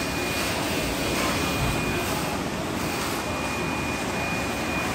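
Steady roar of industrial plant machinery and air movement, with a thin, steady high whine on top.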